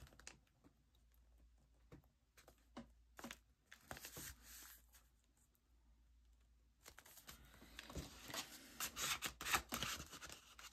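Paper being handled and torn by hand: faint scattered crinkles and taps, then a denser crackling rustle of paper from about seven seconds in.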